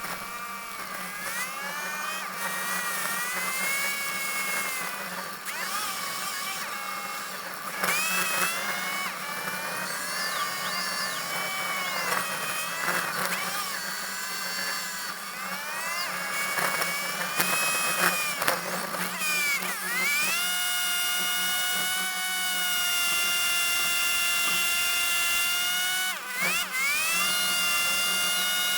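High-pitched mechanical whine from heavy-truck machinery, rising and falling in pitch several times over a steady low hum. It then holds level for a long stretch in the second half, with a brief dip and recovery near the end.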